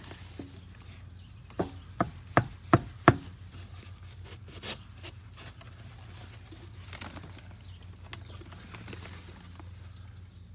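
Five sharp wooden knocks in quick succession, about three a second and getting louder, as wooden shims are driven tight between a pier and a mobile home's steel frame. A couple of lighter clicks follow, over a steady low hum.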